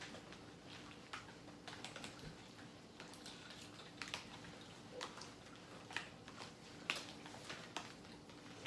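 Faint, irregular small clicks and taps of people eating, about one or two a second, over a faint steady hum.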